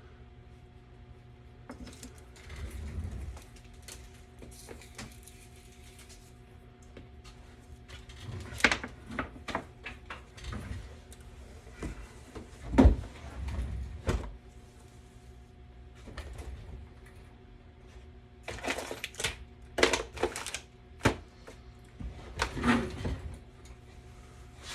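Hands working with wires and tools on a workbench: scattered clicks, knocks and rustling, with one louder knock about halfway through and a quick run of clicks near the end, over a faint steady electrical hum.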